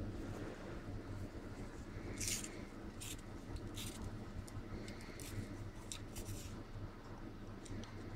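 Metal lathe running with a steady low hum, with a run of short, high scratchy scrapes from about two seconds in until past six seconds, and a few more near the end.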